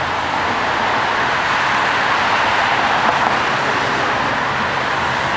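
Steady city street traffic: an even, continuous noise of passing cars, tyres and engines, with no single vehicle standing out.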